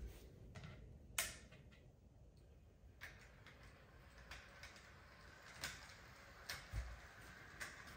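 Faint clicks and light knocks from a model train set, with a faint steady whir from about three seconds in as the locomotive runs along the track.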